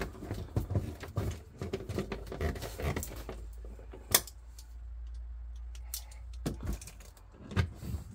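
Small clicks, taps and rattles of plastic refrigerator fan-housing parts and small screws being handled, with one sharper click about four seconds in.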